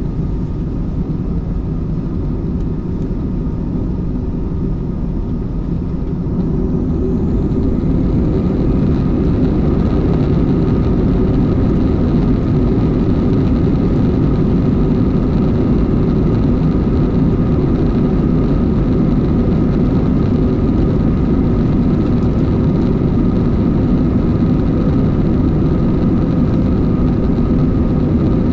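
Cabin noise inside an Airbus A321-211 on takeoff, from its CFM56-5B turbofan engines at takeoff thrust: a heavy steady rumble with a thin steady whine over it. About seven seconds in it grows louder and brighter, then holds.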